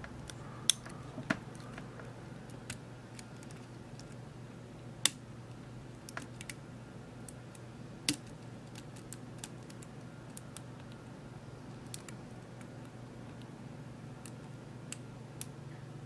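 Steel lock pick clicking and ticking irregularly against the pins and keyway of a 7-pin Assa Abloy cylinder as the pins are probed under tension, with a few sharper clicks about a second in and at about five and eight seconds, over a low steady hum.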